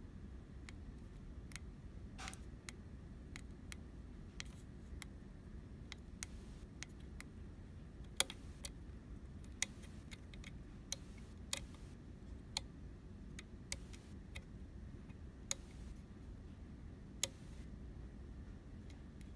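Small slide switches and push buttons on a Nexys 4 DDR FPGA board being flipped and pressed by a finger: sharp, irregular clicks about a second apart over a low steady hum.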